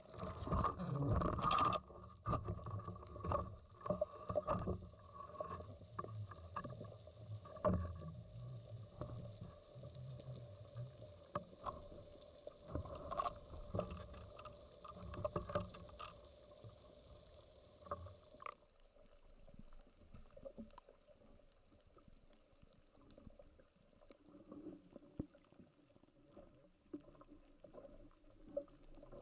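Underwater sound through the housing of a speargun-mounted camera: a burst of loud knocks and rattles from the gun and line just after the shot, then scattered clicks, knocks and water movement as the diver swims up. A steady high hiss stops abruptly about two-thirds of the way through.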